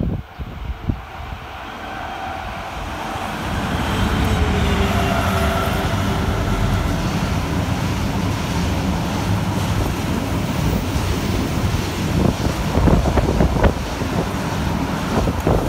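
Class 218 V12 diesel-hydraulic locomotive approaching and passing below, its engine sound rising over the first few seconds, followed by the car-carrier wagons rolling past with a steady loud rumble and clatter of wheels. Wind buffets the microphone near the end.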